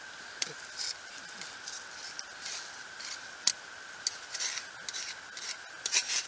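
A hand tool scraping and scooping into hard clay soil, in irregular strokes with a few sharp clicks as the blade strikes the dirt.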